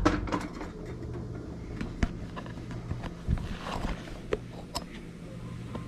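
Scattered knocks and clinks of a dark enamel stockpot being handled and set down on an electric coil-burner stove, with the sharpest knock about two seconds in, over a low steady hum.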